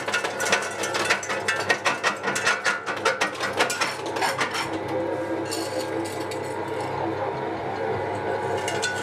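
Small electric jaw crusher running and crushing lapis lazuli stones, its jaws clapping together with a rapid rattle of cracks and knocks. After about four and a half seconds the cracking thins out to a steadier machine hum with only occasional clicks.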